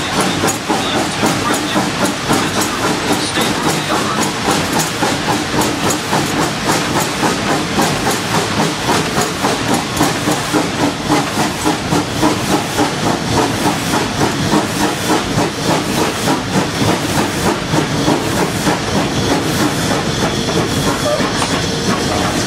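Tweetsie Railroad No. 190, a narrow-gauge 2-8-2 steam locomotive, running under steam as heard from inside its cab: a constant steam hiss with a steady rhythmic beat.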